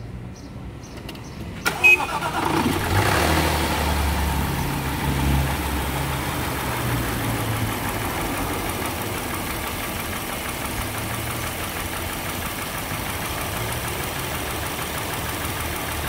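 Jaguar 3.0-litre supercharged V6 engine started about two seconds in, revs flaring briefly before settling to a steady idle. This engine has a ticking noise that the owner suspects comes from a hydraulic lifter or a bad supercharger coupler.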